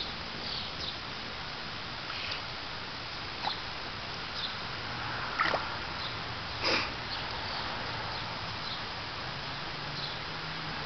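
A Savannah cat's paws making light splashes as it steps in the shallow water of a plastic kiddie pool, two of them sharper near the middle. Behind them are a steady outdoor hiss and faint, brief high chirps now and then.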